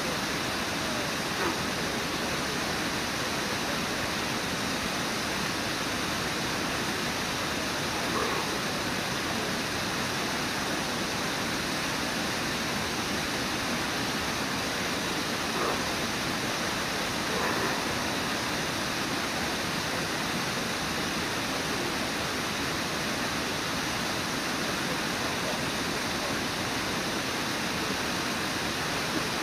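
Steady rush of Brooks Falls, water pouring over the falls and through the river rapids, at an unchanging level. A few brief faint sounds stand out now and then.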